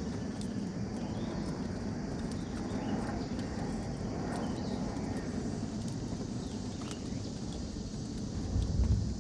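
Footsteps of people walking on a trail, with insects calling steadily in the background; a brief low rumble swells up near the end.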